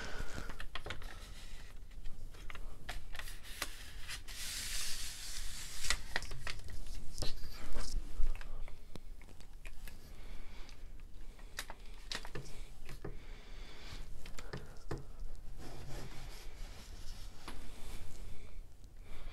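Handling noise from a hand-held camera being moved and repositioned: rubbing and scraping with many scattered small clicks and knocks, loudest for a couple of seconds near the start.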